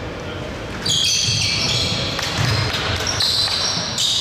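Basketball game play on an indoor court: the ball is dribbled with repeated low thuds, and sneakers squeak on the floor from about a second in.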